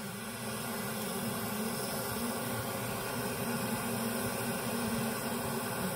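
Handheld butane gas torch burning with a steady hiss as its flame heats a silver ring's shank for soldering.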